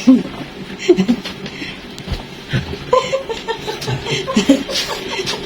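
A person laughing and giggling in short bursts, with a quick run of short notes about three seconds in.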